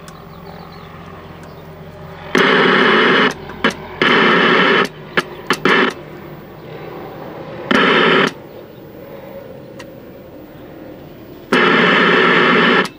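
The speaker of a 1968 RCA Victor portable tube TV gives four loud bursts of static hiss and buzz, each about a second long, with a few short blips between, as the channel tuner is stepped. The sound comes on for some channels and cuts out on others.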